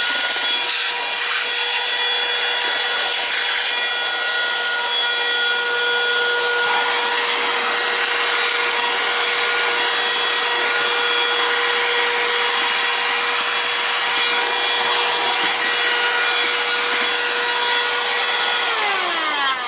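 Baucatlan 12V corded handheld car vacuum running steadily, a motor whine over rushing air, vacuuming dirt and grit from a car with its crevice tool. Near the end it is switched off and the whine falls in pitch as the motor spins down.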